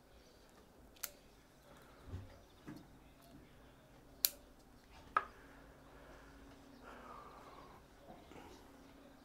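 Hand pruning scissors snipping through ficus roots: three sharp snips, about a second in, a louder one about four seconds in and another just after five seconds, with a couple of soft knocks of roots being handled in between.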